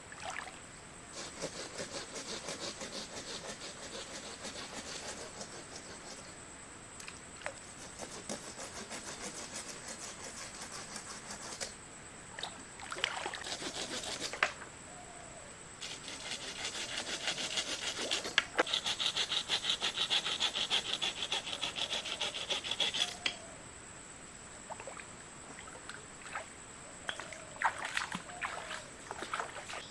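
Wood being cut with a hand saw in quick, even back-and-forth strokes, in two long bouts with a pause between them, then a few scattered knocks.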